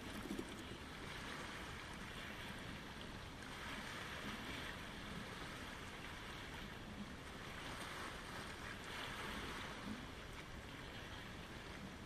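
Small waves lapping on a pebble shore and washing around rocks, a soft wash that swells and eases every few seconds.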